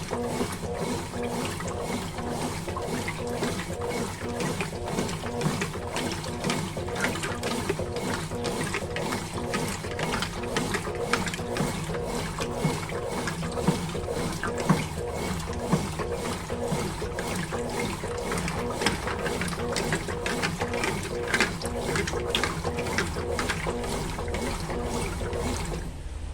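Consul Facilite 11 kg top-loading washing machine agitating its wash load: a steady motor hum with a regular swish of water and clothes, about two to three strokes a second.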